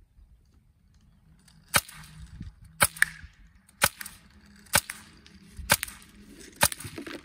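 Sig Sauer Virtus .22 PCP air rifle firing six rapid shots, about one a second, at a clay target moving down a zipline.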